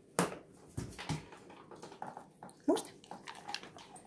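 German shepherds eating dry kibble from a hand: scattered crunching and chewing clicks, with a short rising whine from a dog about two and a half seconds in.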